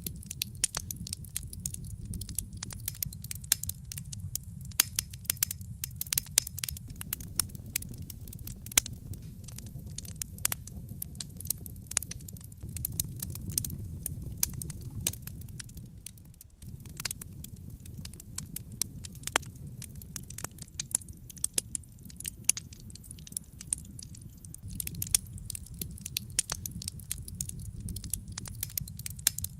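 Wood fire in a fireplace crackling, with many sharp irregular pops and snaps over a steady low rumble of the flames.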